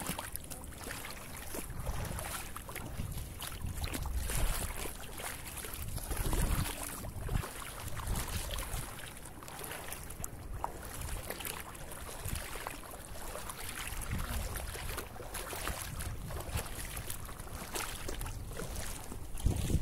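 Wind buffeting the microphone in uneven gusts, a low rumble over a steady hiss, with faint footsteps splashing on wet sand and shallow water.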